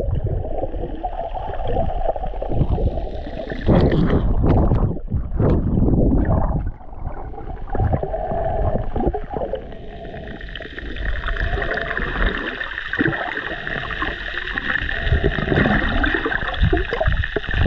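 Muffled underwater water noise picked up by a submerged camera: irregular sloshing and gurgling with low rumbles, joined about ten seconds in by a steady high hiss.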